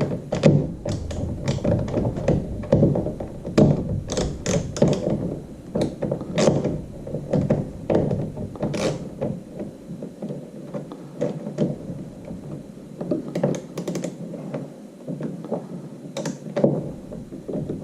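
Nuts on the heading-sensor mount being tightened with an 11/32 socket: irregular clicks and knocks of the socket and hardware working on the bolt.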